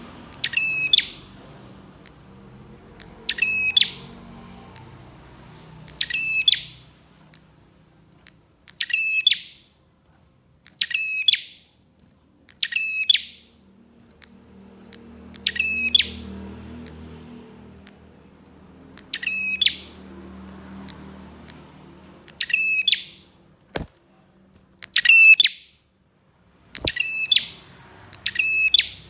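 Prenjak (prinia) calling: a short, loud burst of rapid chirps repeated every two to three seconds. Two sharp clicks come near the end.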